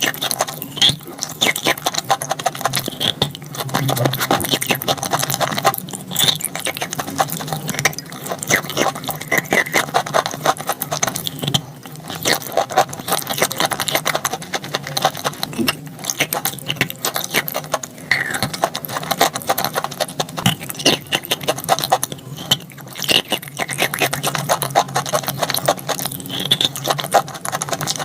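Dry edible chalk crunching as it is bitten and chewed close to the microphone: a dense, continuous run of small crackles with a few brief pauses.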